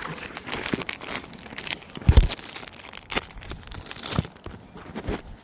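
Crinkling and rustling of the packaging around a new oil pressure sensor as it is handled, with a dull thump about two seconds in.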